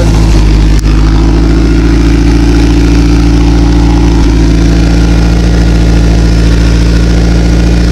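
Mercruiser 470 3.7-litre four-cylinder sterndrive engine running steadily, with one brief click just under a second in. It keeps running only with the choke closed, which the mechanic takes for a carburetor problem, probably obstructed idle jets.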